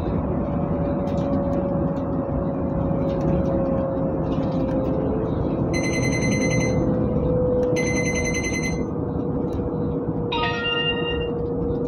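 Cabin of a moving public bus: steady engine and road noise with a steady whine that drifts slightly lower in pitch. Around the middle come two high electronic beeps, each about a second long, and near the end a short ringing chime.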